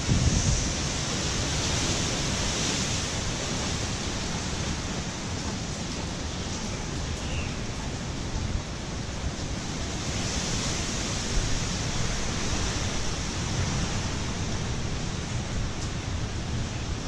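Hurricane-force wind and heavy rain making a steady rushing noise, with a gust buffeting the microphone right at the start.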